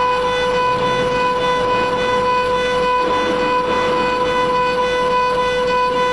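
Mini CNC router's high-speed spindle running with a steady high-pitched whine while its engraving bit cuts a metal plate, a rough cutting noise under the tone.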